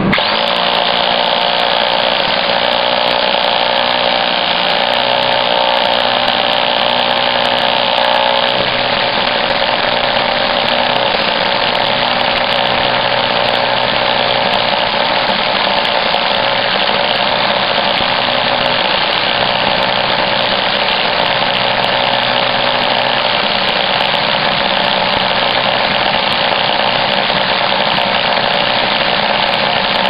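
Hammer drill in hammer mode driving a socket box sinker cutter into a concrete block wall. It starts abruptly and then runs steadily under load, boring out a square recess for an electrical box.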